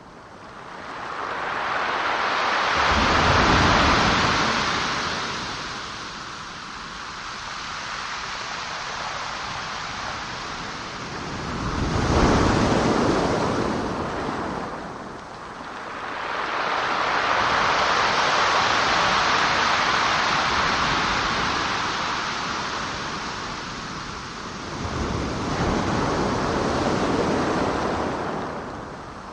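Pacific Ocean waves breaking on a gravel and pebble shore. Each wave comes in with a deep rumble, about every six to ten seconds, and then washes out in a long hiss.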